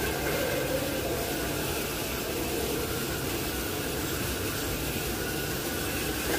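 Steady hissing noise of a body-shop power tool running without a break.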